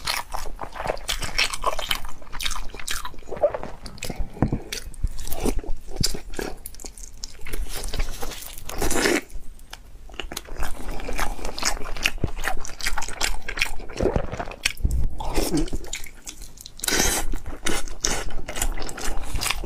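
Close-miked biting and chewing of braised pork intestine rolls: wet, sticky mouth sounds with many irregular short clicks.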